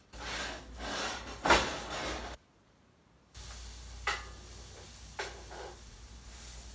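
Vegan black bean burger patties sizzling in a skillet, with a knock about a second and a half in. Later come two short ringing taps, a spatula against the pan. The sound cuts out briefly near the middle.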